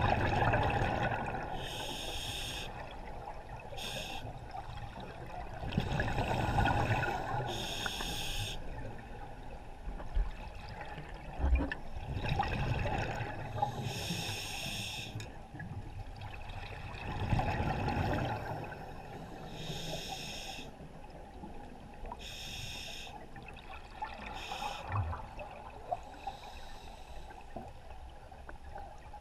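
A scuba diver breathing through a regulator, recorded underwater: hissing inhalations alternate with low bubbling bursts of exhaled air, roughly one breath every five or six seconds.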